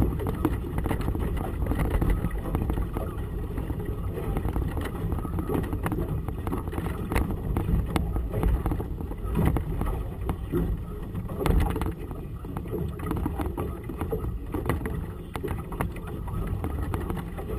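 Gusty wind rumbling on the camera's microphone, with choppy water splashing against a boat's hull in irregular slaps.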